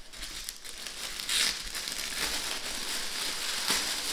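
Tissue paper crinkling and rustling as hands unfold and pull it open, with a louder crinkle about a second and a half in.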